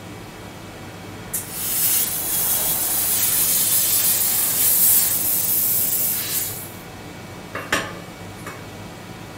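Acctek AKQH-1000 handheld fiber laser with its cutting nozzle cutting through a metal tube: a loud, steady spraying hiss starts about a second and a half in and stops after about five seconds. Two short sharp clicks follow, over a low steady hum.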